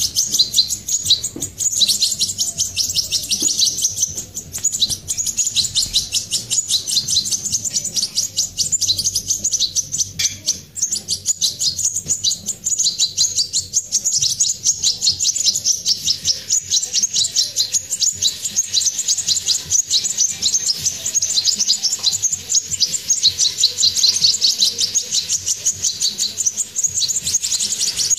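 Hand-fed songbird nestlings begging for food with fast, continuous high-pitched chirping that keeps up without a break.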